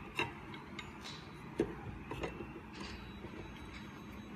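A few light clicks and taps of metal parts being handled as the Z-axis plate with its brass nut is fitted back over the 3D printer's lead screw, the clearest about one and a half seconds in, over a faint steady hum.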